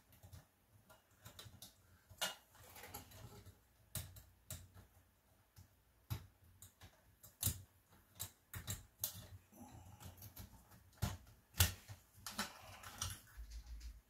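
Irregular light clicks and taps as cable connectors are pushed by hand onto an Apple II floppy drive's logic board, with the loudest knock near the end.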